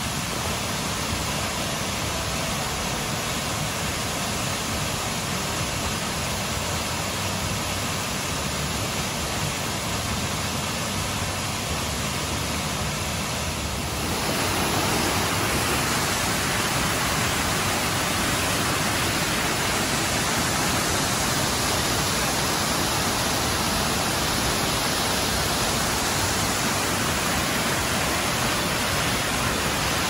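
Mountain waterfall: a steady rush of water pouring over rock ledges, getting louder in one step about halfway through.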